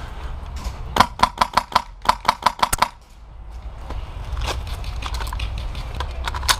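HPA-powered airsoft rifle firing on semi-auto: a rapid string of about a dozen shots in under two seconds, then a single shot about halfway through and another near the end, over a steady low rumble.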